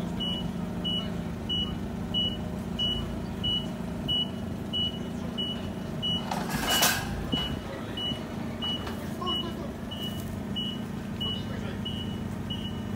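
LPG forklift's warning beeper sounding a steady single-tone beep about one and a half times a second over the hum of its idling engine. About halfway through there is a brief, loud rush of noise.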